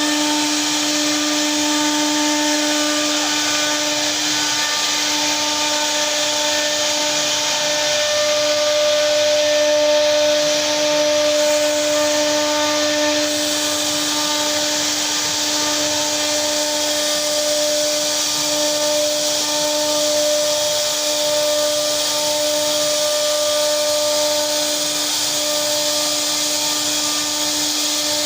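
CNC router spindle running at a steady pitch while its bit cuts into wood, giving a constant whine over a rough cutting hiss.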